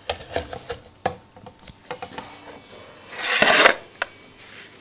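Handling noises from a model aircraft's fibreglass fuselage nose and its brushless motor: a few light clicks and taps, then a loud half-second scrape as the fuselage is moved about three seconds in, and one last click.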